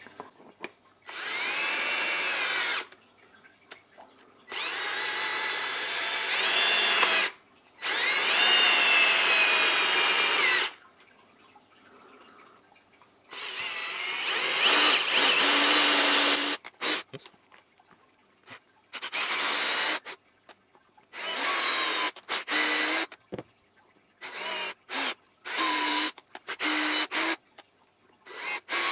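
Cordless drill with an 8 mm bit reaming out undersized holes in a 3D-printed ABS part. There are four runs of a few seconds each, the motor whine rising in pitch as it spins up, then a quick series of short bursts in the last ten seconds.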